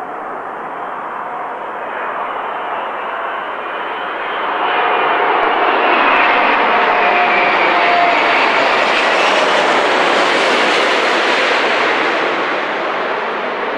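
Airbus A380-861's four Engine Alliance GP7200 turbofans on landing approach, passing low overhead: a jet rushing noise with a faint steady whine. It grows louder about four seconds in, stays at its loudest as the airliner goes over, then eases slightly near the end.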